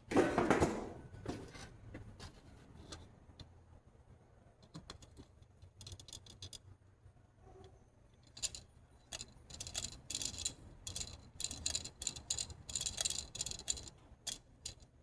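A knock of handling at the start, then small metallic clicks and ticks from a hex driver turning button-head screws into the plastic case. The clicks come thick and fast in the second half.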